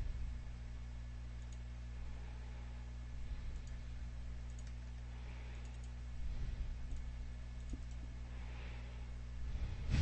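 A few faint computer mouse clicks over a steady low hum.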